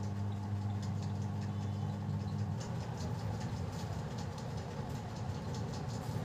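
Steady low electrical hum that stops about two and a half seconds in, leaving a low rumble with faint scattered clicks.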